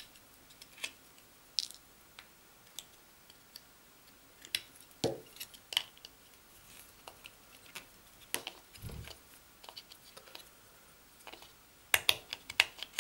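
Snips cutting plastic knockouts out of a small junction-box lid: separate sharp snaps every second or so, coming thicker near the end. There are also a couple of dull knocks from handling.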